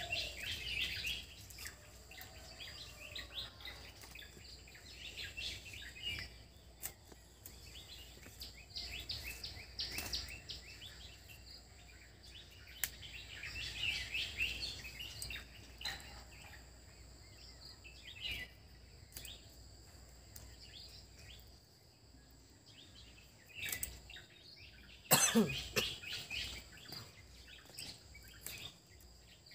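Small birds chirping in scattered bouts of quick high calls, loudest about twenty-five seconds in, over soft crisp snaps of cauliflower florets being cut on a boti blade.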